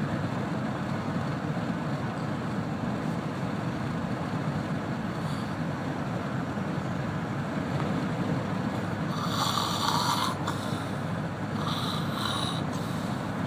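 A man snoring in a moving vehicle's cabin over steady road and engine noise, with two harsher snores, about nine and twelve seconds in.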